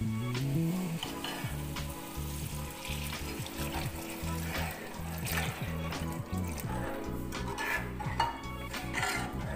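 Hot water poured into masala frying in oil in a metal kadai, sizzling and bubbling, while a metal spoon stirs and clinks against the pan.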